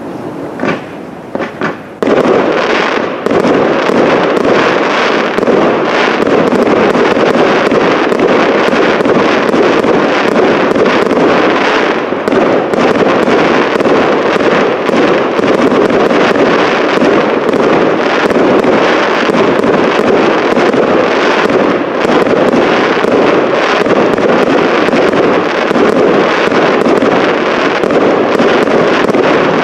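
Aerial fireworks going off. A few separate cracks at first, then from about two seconds in a dense, continuous barrage of shell bursts and crackling that does not let up.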